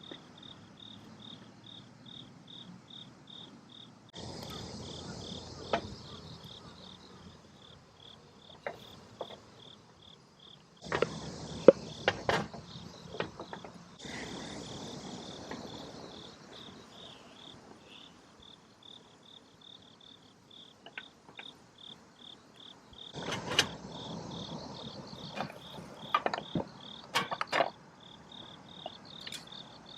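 Insects chirping in a steady, evenly pulsing high-pitched rhythm, with scattered sharp clicks and knocks of handling a little after the first third and again near the end.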